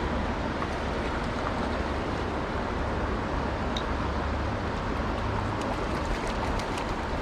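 Mountain stream rushing steadily, with a few faint ticks in the second half.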